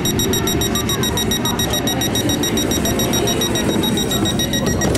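Rapid high-pitched electronic warning beeping, several beeps a second, over the low rumble of trains; the beeping stops abruptly near the end.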